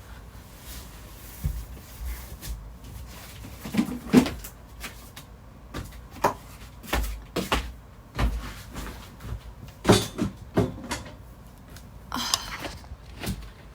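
Irregular light clicks and knocks of small objects being handled close to the microphone, with a brief breath or murmur about four seconds in.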